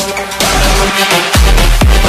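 Background electronic dance music. After a short thinner stretch, the heavy bass and kick-drum beat come back in about one and a half seconds in, at about two beats a second.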